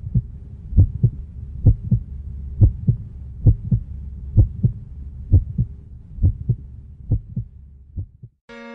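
Heartbeat sound effect: paired lub-dub thumps a little under once a second over a low hum, growing weaker toward the end. A sustained keyboard chord comes in just as the heartbeat stops.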